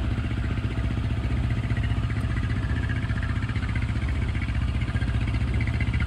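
Sailboat's engine running steadily under way, a low, even pulsing drone.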